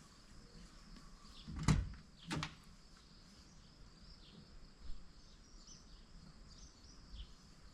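Two sharp knocks under a second apart, about a second and a half in, then a softer knock later. Faint high bird chirps can be heard in the background.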